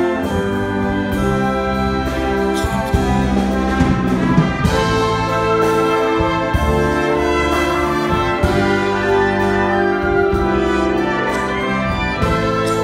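Wind orchestra playing a brass-led passage of full, held chords, with percussion strikes a few seconds in.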